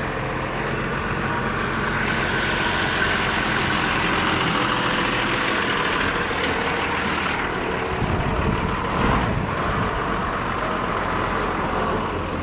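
Truck engine running steadily, with road traffic noise that swells and fades over a few seconds.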